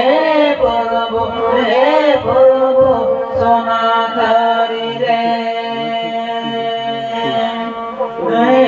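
Women singing a chant-like devotional song into microphones, phrase by phrase, over a steady held drone, accompanied by a bowed folk fiddle.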